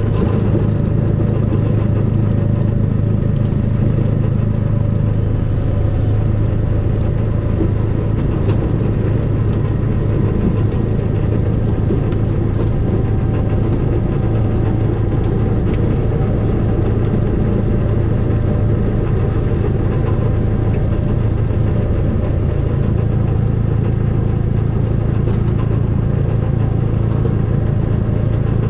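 Snowplough vehicle's engine running at a steady speed: a constant low drone with no change in pitch.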